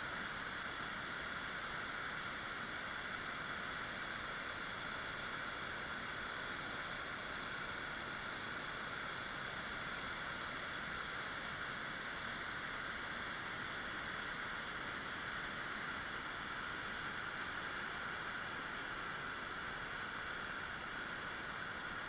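Water rushing steadily over river cascades and rapids, an even hiss with no breaks.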